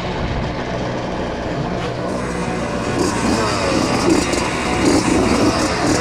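Two-stroke Puch Maxi moped engines running; from about halfway their pitch wavers up and down as several are revved together.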